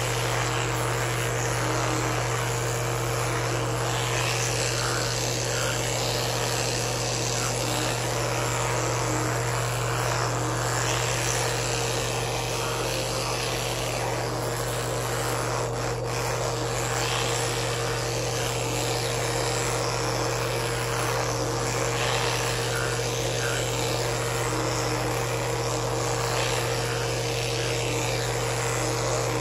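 Electric toothbrush running with a steady hum.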